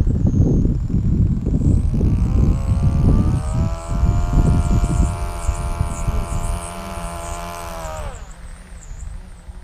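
Electric RC aerobatic plane (Pilot RC 67-inch Slick) flying a low pass, its T-Motor AM670 brushless motor and propeller giving a steady whine that drops in pitch and fades about eight seconds in. Wind buffets the microphone, loudest in the first half.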